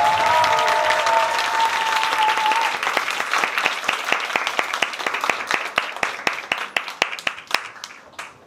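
Audience applauding, with a voice holding a cheer over it during the first couple of seconds; the applause then thins to scattered individual claps and dies away.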